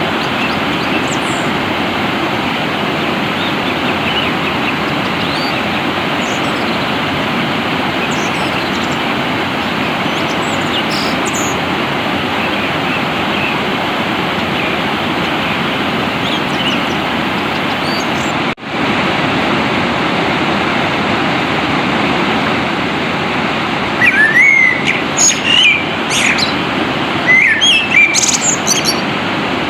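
Steady rush of flowing water with faint bird chirps over it. After a brief dropout, a songbird calls loudly near the end with short, rising chirps in quick bursts.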